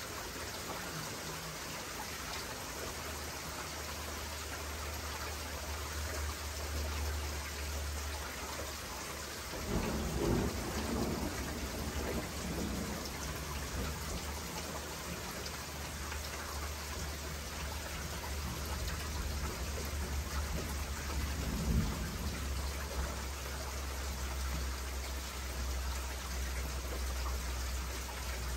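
Heavy rain pouring steadily, with thunder rumbling low beneath it and swelling louder about ten seconds in and again about twenty-two seconds in.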